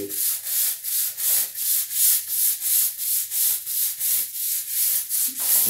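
Stiff scrub brush scrubbing wet ceramic floor tiles back and forth, about three strokes a second, each stroke a scratchy swish, working oxalic acid into crusted grime.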